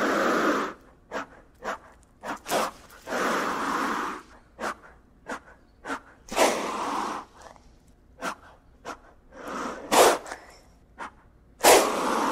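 Gila monster hissing: five long breathy hisses of about a second each, roughly every three seconds, with short sharp puffs of breath between them.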